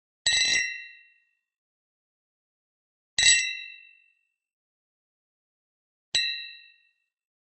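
Thin glass mugs clinked together in a toast: three separate clinks about three seconds apart. Each is a bright, high ring that fades within a second.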